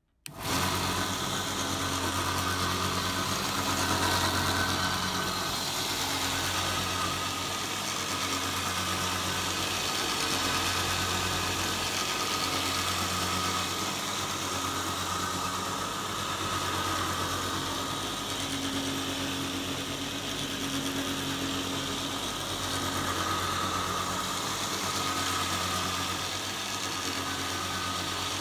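Homemade belt grinder starting abruptly and running steadily: its electric motor hums with a slow wavering beat every two to three seconds, under a broad hiss.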